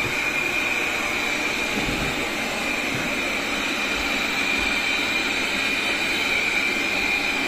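Ultenic T10 robot vacuum cleaning: a steady whir from its suction fan with a constant high-pitched whine.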